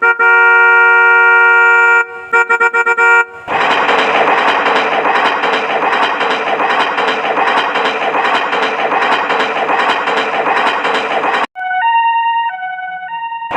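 A train horn sounds a long chord of several notes, then a quick run of short toots. About three seconds in, a dense, rattling rush of train running noise starts and lasts about eight seconds. It cuts off suddenly, and a short tune of stepped electronic beeps plays near the end.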